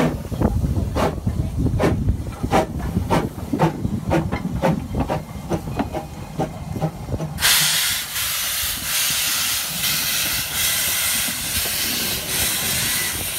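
Brecon Mountain Railway steam locomotive No. 2 blowing off steam at track level from its cylinder drain cocks: a loud, steady hiss that starts abruptly about seven seconds in. Before it there is a low rumble with irregular knocks.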